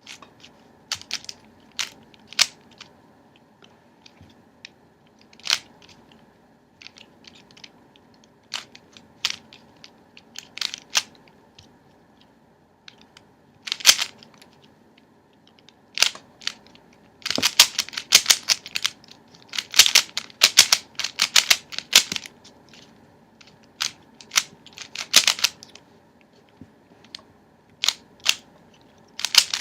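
Plastic speed cube, loosely tensioned so it spins fast, being turned by hand: scattered single clicks of layer turns at first, then dense rattling flurries of quick turns in the second half, with short pauses between sequences.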